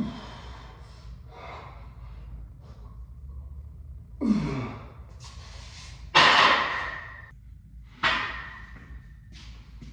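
A man's forceful exhales of exertion, four hard breaths about two seconds apart, some with a short grunt that drops in pitch, from the strain of lifting a barbell through a set of bent-over rows.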